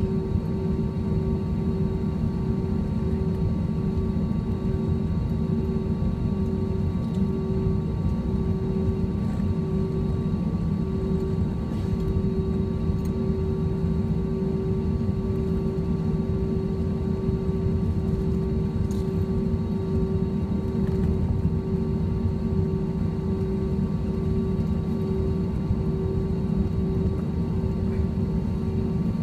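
Inside the cabin of an Airbus A321 taxiing: the jet engines and airframe give a steady rumble with a constant whine on top.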